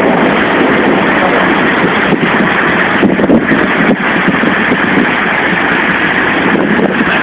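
Loud steady rushing noise of a heavy rainstorm, rain and wind without a break.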